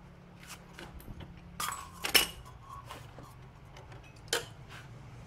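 Metal tools and scooter parts clinking and knocking against each other as they are handled and fitted: a string of sharp clicks, the loudest about two seconds in and another a little after four seconds.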